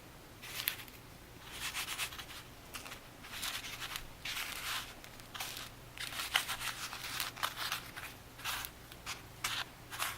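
About a dozen short crunching, scraping sounds at uneven intervals: tomato slices being dredged and pressed into a dry breadcrumb and cornmeal coating.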